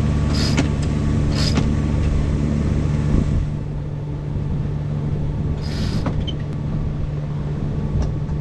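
Sailboat's inboard engine running with a steady drone while a sheet winch is cranked to trim the sails; the winch ratchets in short bursts, twice in the first two seconds and once more about six seconds in.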